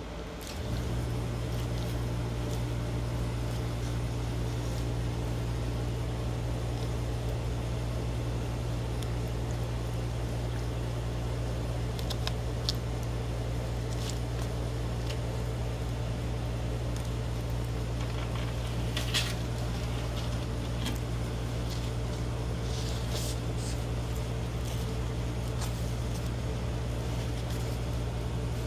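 A steady low mechanical hum, like a fan or air-conditioning unit, coming on about half a second in and holding even. A few faint clicks and crinkles are heard over it as the iguana eats from a paper plate.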